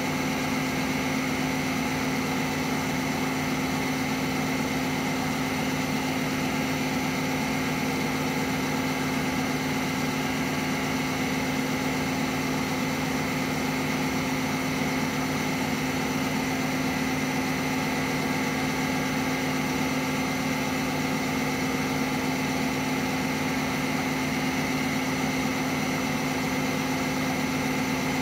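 CNC milling machine running steadily with a workpiece spinning in its spindle while it works as a lathe: a constant motor hum with a steady high whine above it.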